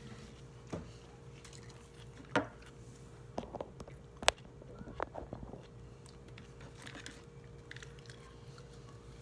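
Scattered, irregular light clicks and knocks from desk work, such as keys, pen or objects being set down, over a steady low hum; two sharper knocks stand out, one a little over two seconds in and one about four seconds in.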